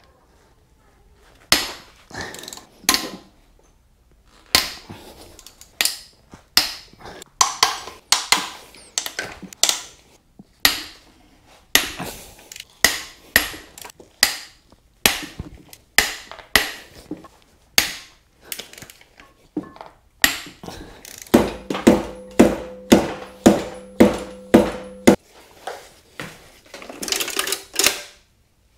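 Metal tools at work on a BMW N20 engine's cylinder head: a long run of sharp metal clicks, clanks and knocks as bolts are worked and parts are set down. Near the end a power tool runs for about four seconds with a steady hum and a regular rapid clatter.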